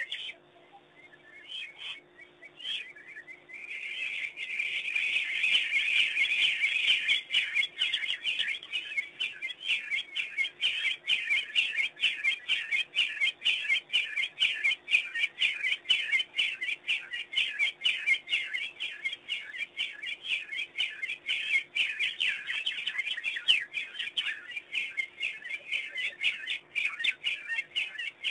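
A pack of African wild dogs giving their high-pitched twittering chorus: dense, rapid chirps that start a few seconds in and go on without a break.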